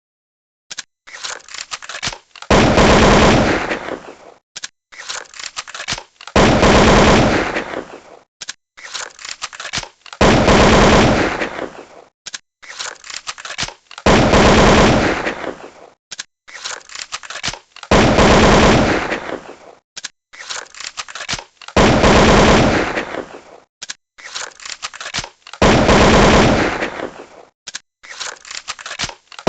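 A firework sound effect looped over and over: scattered pops build into a loud, dense rattle of rapid firecracker bangs that fades out. The cycle repeats about every four seconds, seven or eight times.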